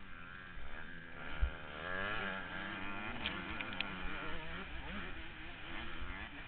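KTM 105 supermini's two-stroke single-cylinder engine revving up and down repeatedly as the rider races, heard through a helmet-mounted GoPro, with a thump about a second and a half in.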